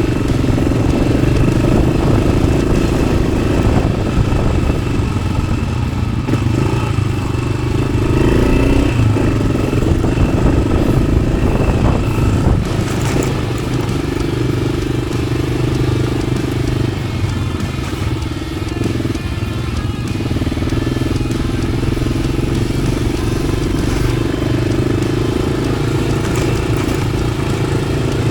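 Yamaha XT600's air-cooled single-cylinder four-stroke engine running through an aftermarket Arrow exhaust while riding, its pitch rising and falling with the throttle.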